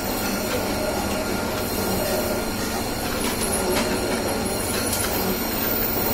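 Semi-automatic cotton wick-making machine running steadily: a continuous mechanical whirring and rattling with a steady low hum underneath.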